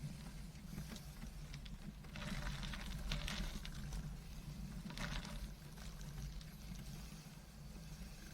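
Tandem bicycle rolling along a dirt trail: a steady low rumble of the ride and wind on the microphone, with stretches of louder gravelly tyre noise about two seconds in and again near five seconds, and a few small ticks and rattles.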